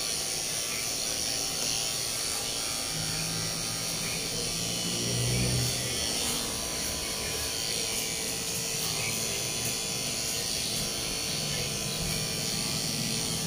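Corded electric pet clipper running steadily as it trims the fur on a dog's face, its hum changing slightly as the blade moves through the coat.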